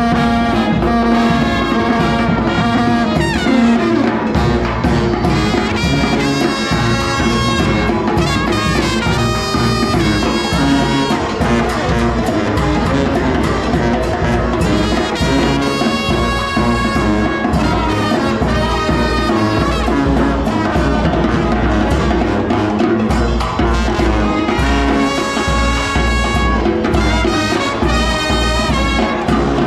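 Brass band playing jazz: trumpet lead over a steady low bass pulse.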